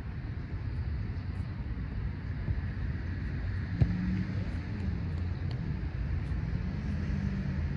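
Steady low outdoor rumble, with a single sharp click about four seconds in.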